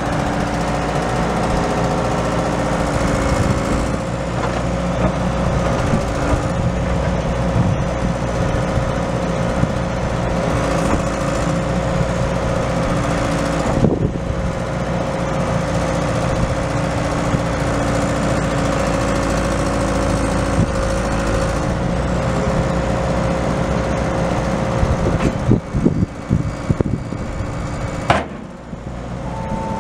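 John Deere 590D excavator's four-cylinder turbo diesel engine running steadily with a steady high whine, as the boom, stick and bucket are moved. Near the end the sound drops and becomes uneven, with a sharp click.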